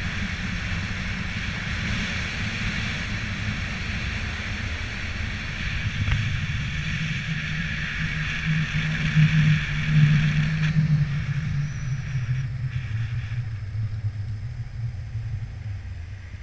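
Zipline trolley's pulley wheels rolling along the steel cable, with wind rushing over the microphone: a steady hiss over a low hum that swells a little past the middle. About eleven seconds in the hiss drops away, and the hum then slides lower and grows quieter toward the end.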